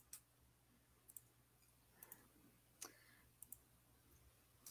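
Faint computer mouse clicks over near silence, some coming in quick pairs like double-clicks.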